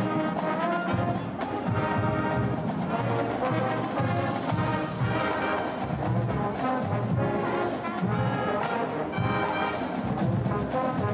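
High school marching band playing, led by trombones, mellophones and other brass, with a regular drum beat underneath.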